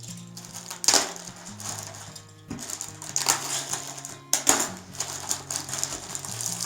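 Parcel packaging being torn open and crinkled by hand, in irregular bursts of crackling, over background music with held low notes.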